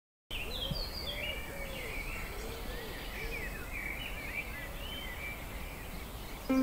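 Several birds singing and chirping, with a lower call rising and falling again several times in the first few seconds, over a steady low rumble.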